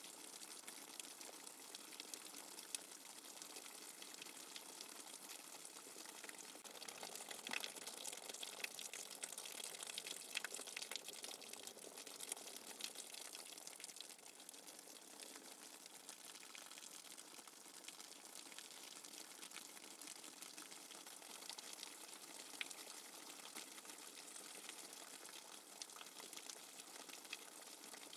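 Steady rain falling without thunder, a dense hiss with many individual drop hits, slightly heavier about seven to twelve seconds in.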